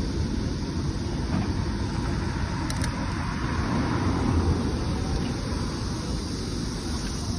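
Steady rushing wind and road noise from riding a bicycle, with the wind buffeting the phone's microphone.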